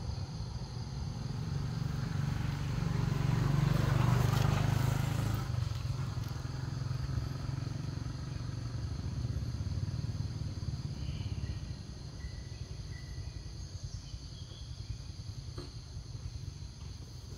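A motor vehicle passing by on a road, growing louder for a couple of seconds and then fading, over a steady low background hum.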